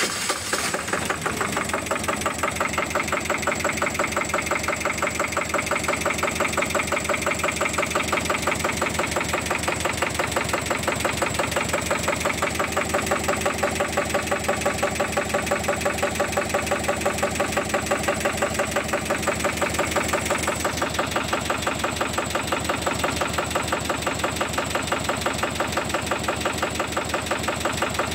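Lombardini 9LD625-2 1248 cc two-cylinder diesel engine running steadily, with an even, rhythmic string of firing pulses.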